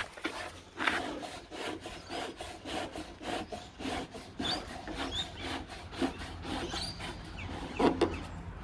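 Handling noises: irregular rubbing, scraping and clicking of parts being fitted by hand, with a few faint short squeaks and a louder double knock near the end.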